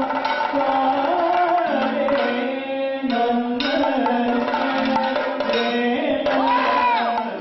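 Kathakali vocal music: a singer holds a bending, ornamented melodic line, singing the characters' lines, over steady drum and percussion accompaniment.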